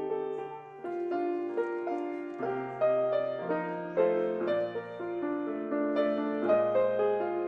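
Grand piano played solo at a slow, gentle pace. Chords and a melody change about every half second to a second, with each chord left to ring.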